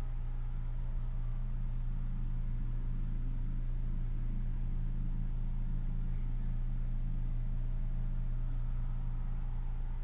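Steady low hum that holds unchanged throughout.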